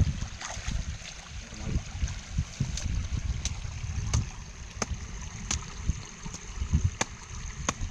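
Water trickling and sloshing with a low rumble, broken by sharp clicks every second or so.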